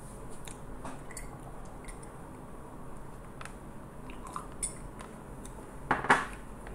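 Quiet room noise with a steady low hum, scattered faint clicks, and a short louder rustle about six seconds in.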